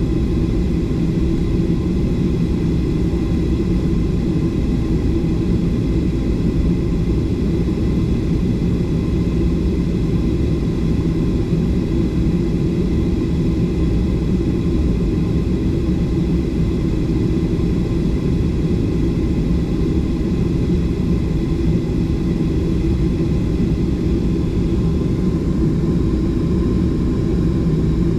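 Steady cabin noise of a Boeing 737 airliner with its engines running: an even, loud low rumble with faint steady whining tones above it, unchanging throughout.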